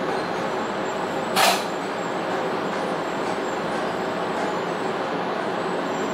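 Tokaido Shinkansen train heard from inside the carriage as it runs slowly along the platform on arrival, a steady rumble of running noise. About a second and a half in comes one brief, loud hiss.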